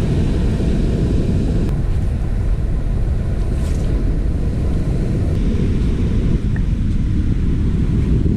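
Wind buffeting the microphone as a loud, steady low rumble, with sea surf washing onto the sand beneath it.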